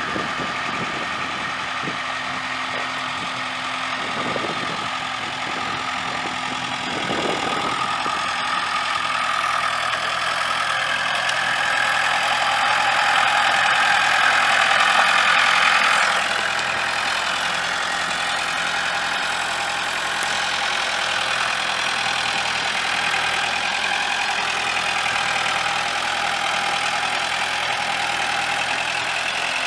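Montana N41 tractor's Mitsubishi 2.3-litre four-cylinder diesel engine running, growing louder over several seconds midway and then dropping back suddenly to a steady run.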